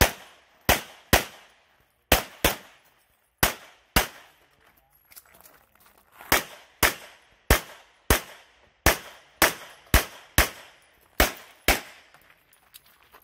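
CZ Shadow 2 pistol fired rapidly during a USPSA stage: about seventeen shots, mostly in pairs about half a second apart (two per target), with a pause of about two seconds a third of the way in while the shooter moves.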